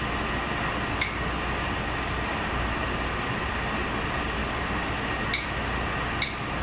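Steady ventilation hum, with three short sharp clicks from metal fish-bone tweezers pulling pin bones out of a salmon fillet: one about a second in and two close together near the end.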